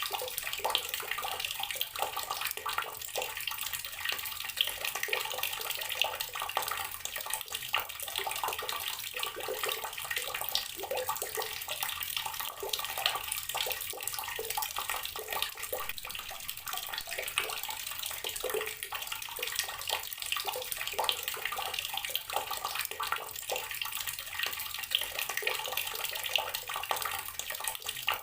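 Water tap running steadily into a water-filled container, a continuous splashing with many small irregular splashes and no break.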